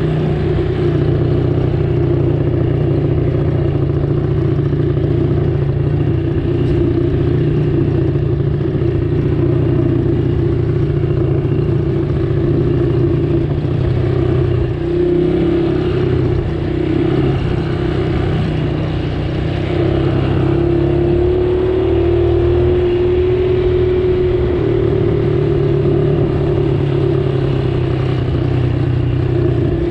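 A vehicle engine running steadily, with a brief dip in level about halfway through and a slight rise in pitch a few seconds later.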